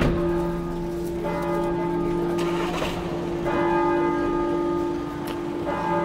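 Large church bell ringing in the tower, a new stroke every one to two seconds, its deep hum ringing on between strokes.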